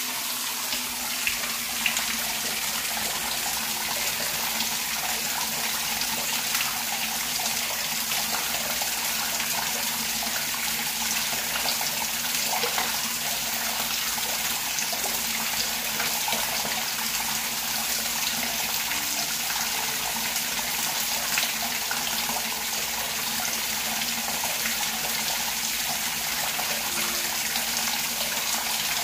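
Shower head spraying water onto a waterproofed shower floor, a steady splashing as the plugged shower pan fills for a flood test. A low steady hum runs underneath.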